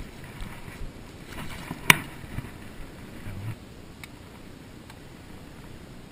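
Outdoor wind rumbling on the camera microphone, with a few soft rustles and one sharp click about two seconds in.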